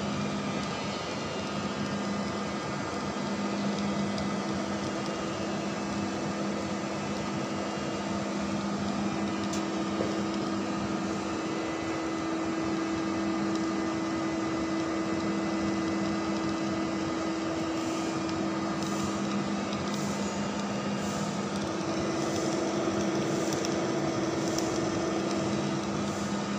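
Large engine lathe running, its tool-post cutter turning a big metal die blank: a steady hum of motor and gearing with two held tones over the rasp of the cut. Faint light ticks come about once a second in the last third.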